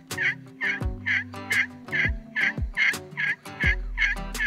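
Turkey slate call (friction call) scratched in a fast, even run of raspy yelps, about two a second. A low hum with a few dull thumps runs underneath.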